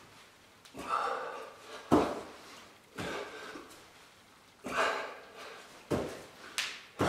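Hands and feet thudding on the floor about once a second as a man repeats an explosive kick-up at a wall, with hard, forceful breaths after several of the landings.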